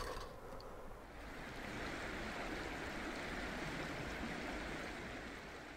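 River water rushing, a steady, even hiss that fades out near the end.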